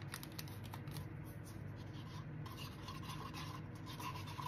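Wooden craft stick stirring pigmented epoxy resin in a paper cup: faint, irregular scraping and rubbing.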